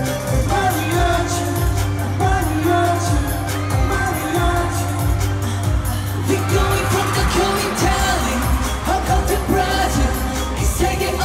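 Live K-pop performance over an arena sound system, recorded from the audience on a phone: singing over a pop track with a steady beat and heavy bass. The bass drops out briefly about six seconds in, then returns.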